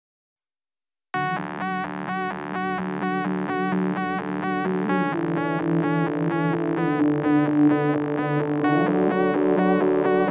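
Silence for about a second, then background music starts abruptly: a synthesizer pulsing a repeated chord about twice a second over steady sustained notes.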